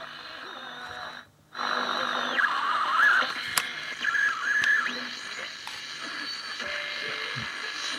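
Small AM medium-wave transistor radio hissing through its speaker, with wavering whistle tones on top. It briefly cuts out about a second in, then comes back louder.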